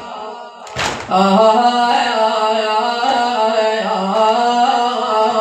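Solo male voice chanting a Shia latmiya lament, drawing out one long, wavering melismatic line without clear words. It begins about a second in, just after a short noisy burst.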